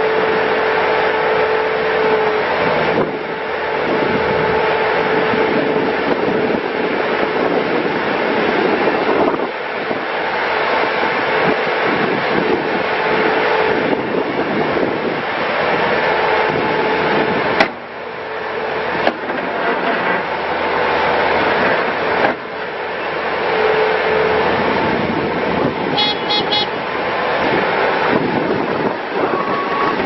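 Bobcat T590 compact track loader's diesel engine running under load as the bucket is worked and the machine tracks and turns, with a steady whine that drops out now and then. A sharp click comes a little past halfway.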